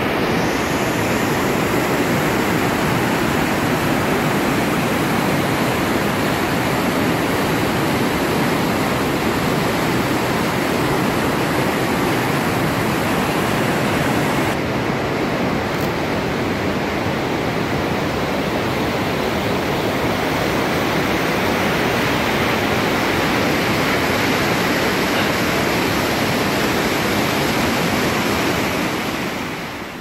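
Steady rush of a fast mountain river's whitewater rapids, fading down near the end.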